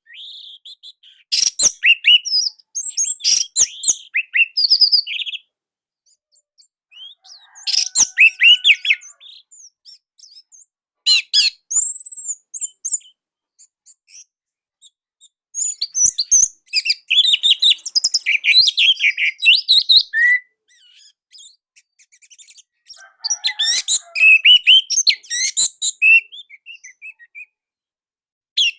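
Orange-headed thrush singing: loud, tight bursts of rapid, varied high notes, five phrases with pauses of a couple of seconds between them.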